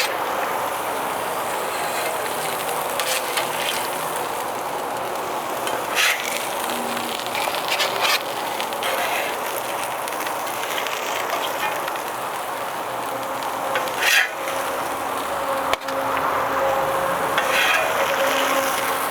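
Onion smashburgers sizzling on a carbon steel griddle, with a few short scrapes of a metal spatula as the burgers are lifted off.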